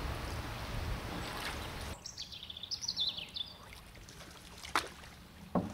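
Canoe paddling on still canal water: steady water noise, then quieter paddle drips with a short burst of small-bird song a little past halfway and two sharp knocks near the end.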